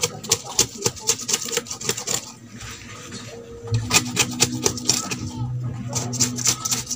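Quick runs of clicks and scrapes from hand work on a wooden stool frame, with a quieter pause of about a second and a half near the middle. A low steady hum comes in about halfway.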